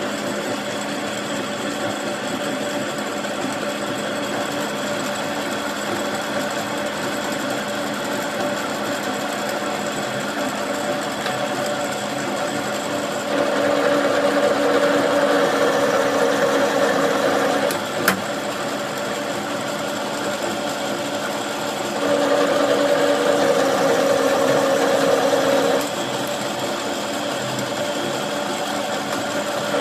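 A machine motor running steadily with a constant hum, growing louder for two spells of about four seconds each, with a single sharp click just after the middle.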